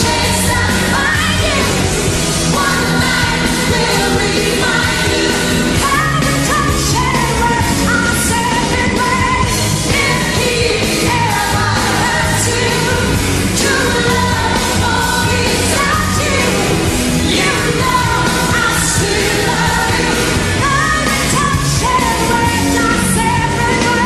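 A woman singing a pop-rock song live into a microphone, holding long high notes over loud band accompaniment.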